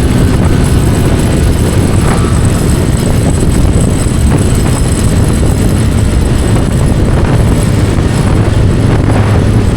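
Bajaj Pulsar N250's single-cylinder engine running at high speed in top gear, mostly buried under heavy, steady wind buffeting on the action camera's microphone.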